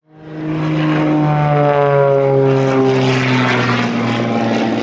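Extra 330 aerobatic plane's piston engine and propeller running at high power in flight, its pitch falling steadily. The sound fades in quickly at the start.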